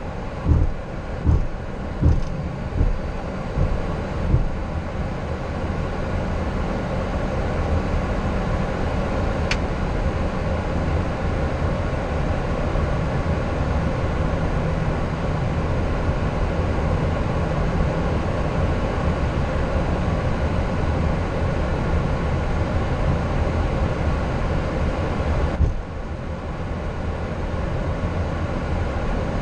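Boeing 737-800 cockpit noise while taxiing: a steady low rumble of the CFM56 engines and the rolling airframe. For the first four seconds or so a regular thump comes about every 0.8 s, and about 26 s in the noise drops suddenly to a lower level.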